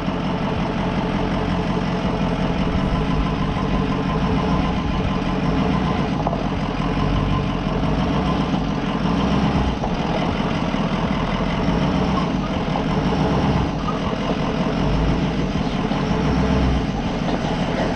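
Ford E350 Sportsmobile van's engine running steadily at low revs, close to idle, as the van crawls down a steep rocky trail.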